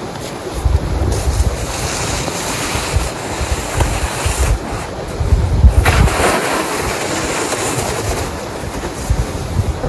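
Gusty wind buffeting the microphone in low rumbles, over the swish and scrape of a plastic snow dump being pushed through snow, strongest about six seconds in.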